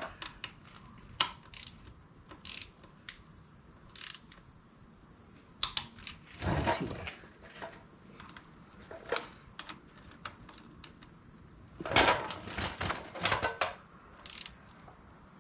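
Ratcheting torque wrench set to 19 Nm tightening the front-axle tension bolt, clicking in short ratcheting bursts around the middle and again near the end, with scattered single tool clicks between.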